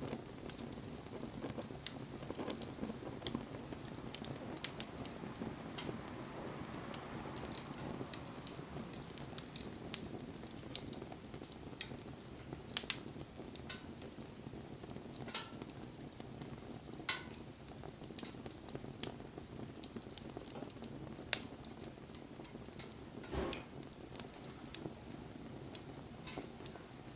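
Wood fire burning: a steady hiss with scattered sharp crackles and pops, a few of them louder snaps.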